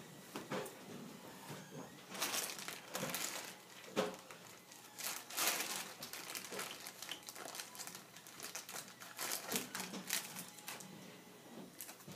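Plastic poly mailer bag crinkling and rustling in irregular bursts as it is handled and opened, with a sharp click about four seconds in.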